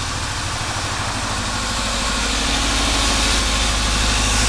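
1999 Saturn SL1's four-cylinder engine idling with a number-one cylinder misfire, a steady low rumble that grows gradually louder.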